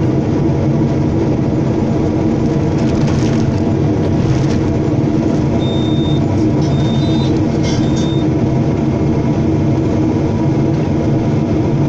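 Diesel engine of a Hyundai hydraulic excavator running steadily under load while the machine digs a trench, heard from the cab. A few short high-pitched tones sound briefly around the middle.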